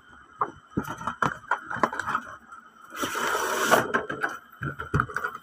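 Clear plastic blister tray and cardboard box of toy-figure packaging being handled: a run of clicks, taps and crinkles of the plastic, with a louder rustling scrape lasting under a second about three seconds in as the tray is pulled out of the box.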